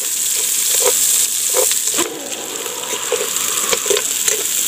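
Onions, garlic and pork sizzling in hot oil as they are sautéed in a metal pot, with a metal slotted spoon stirring and knocking against the pot every second or so.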